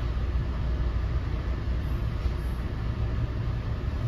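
Steady low rumble of an NJ Transit MultiLevel passenger coach running at speed, heard from inside the cabin.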